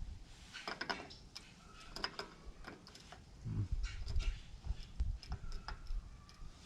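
Scattered light metallic clicks and taps as the parts and small screws of a manual locking hub are handled and fitted onto the front axle hub.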